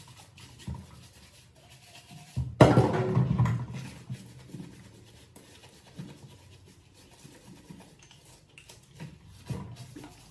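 Scrubbing and rubbing as a plastic baby bottle is washed with a brush at a stainless steel sink, in faint scattered strokes and clicks. About two and a half seconds in comes a louder burst of sound lasting about a second.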